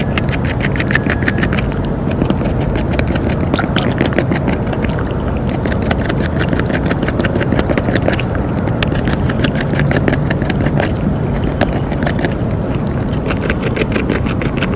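North American beaver gnawing bark off a green stick held in its forepaws, its incisors making rapid crunching clicks on the wood, several a second with brief pauses, over a steady low rumble.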